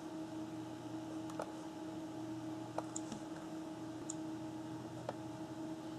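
Wireless keyboard clicking as it works the on-screen menus: about five sharp, scattered clicks over a steady electrical hum.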